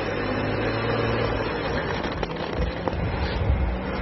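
Jeep Wrangler's engine running under load as it drives forward out of snow onto traction boards. Its note shifts about halfway through, and a low rumble builds in the second half with a couple of sharp clicks.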